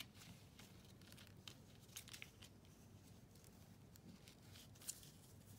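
Faint rustling and crinkling of paper and fragile leaves being handled, with scattered small crackles, the sharpest about two seconds in and near the end.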